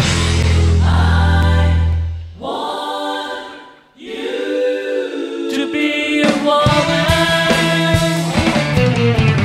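Rock trio of distorted electric guitar, electric bass and drum kit playing live. A long held chord with heavy bass cuts off about two seconds in, and two sustained chords ring out with a brief drop almost to quiet between them. The full band comes back in with a driving rhythm about seven seconds in.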